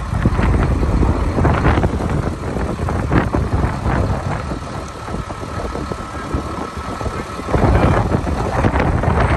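Hino box truck's diesel engine idling. A few knocks sound over it, and a steady high tone holds for about three seconds midway.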